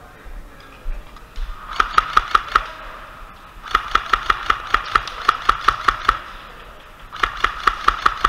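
Airsoft rifle firing in three bursts of rapid shots, about six or seven a second, with a sharp mechanical clack on each shot.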